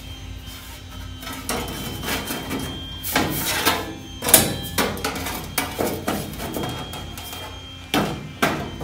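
A thin sheet of flat steel being handled and pressed against a Jeep's steel body tub, giving a run of light metallic knocks and flexing rattles that start about a second and a half in, the loudest about four seconds in.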